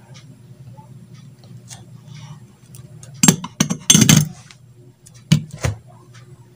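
Sharp clinks and knocks of small metal tools and a circuit board being handled and set down on a workbench, a cluster about three seconds in and two more near the end, over a low steady hum.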